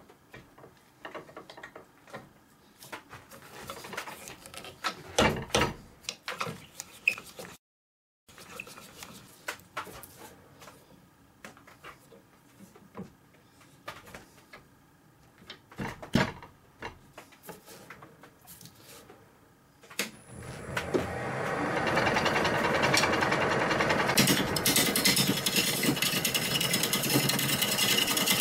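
Scattered knocks and clicks as a wood lathe is set up with a river birch blank. About two-thirds of the way through, the lathe starts with a faint high whine, and a turning tool cuts into the spinning blank with a steady, loud, rough rushing noise.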